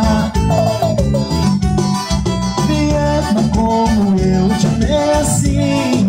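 Live band music: a romantic Brazilian pop song with guitar and keyboard playing a melody over a steady beat.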